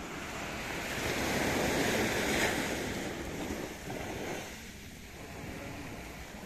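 Sea surf washing up the beach and drawing back, swelling to a peak about two seconds in and then dying away.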